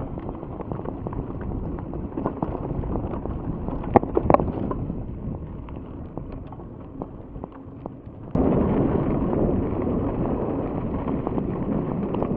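Mountain bike rolling along a forest track: steady tyre noise with the bike rattling and clicking over the surface, and wind on the microphone. Two sharp knocks about four seconds in, and the noise turns suddenly louder a little after eight seconds.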